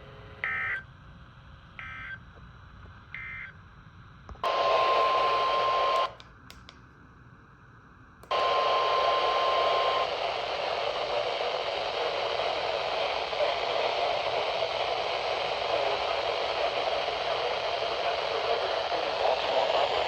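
Three short two-tone digital data bursts about a second apart: the EAS end-of-message code from a NOAA Weather Radio broadcast. Then loud radio static cuts in with a steady tone near 1 kHz, drops out for about two seconds, returns, and goes on as steady hiss.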